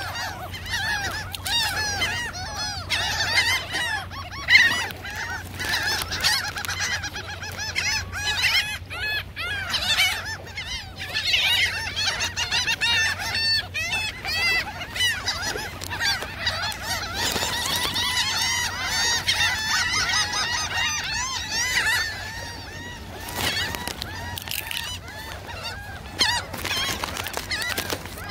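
A flock of gulls calling over one another, many overlapping cries at once, as the hungry birds crowd in to be fed. The calling thins out near the end.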